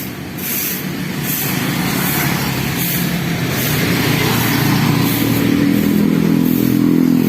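A motorcycle engine running at low speed, its steady hum growing louder as it draws near.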